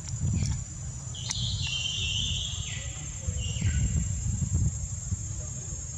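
A baby macaque's high-pitched squealing cry starting about a second in and lasting nearly three seconds, stepping down in pitch near its end. A steady high insect drone runs underneath.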